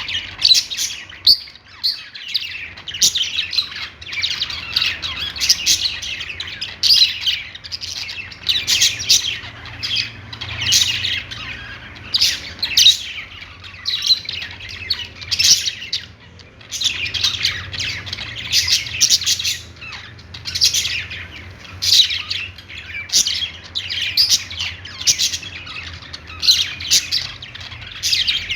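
Budgerigars chirping and warbling in quick, busy bursts of high chirps with occasional squawks: the chatter of contented budgies.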